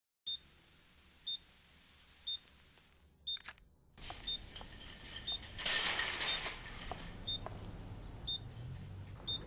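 Short high electronic beep repeating about once a second, a low-battery warning tone. From about four seconds in, outdoor parking-lot noise comes up, with metal shopping carts rattling, loudest around six seconds.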